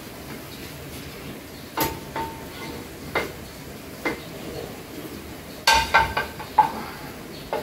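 A wooden spatula knocking and scraping in a nonstick frying pan and a ceramic plate clinking against the pan, with a few separate knocks at first and a quick cluster of clinks near the end, some with a short ring.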